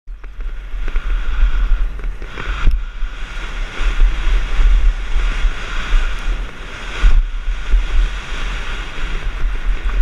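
Heavy wind buffeting on a helmet-mounted camera's microphone while a dirt bike is ridden, with the bike's engine running underneath and easing off briefly twice.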